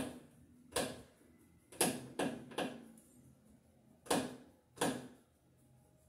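Screwdriver and screws clicking against a GFCI receptacle as it is fastened into the wall box: seven sharp clicks at uneven spacing, each trailing off briefly.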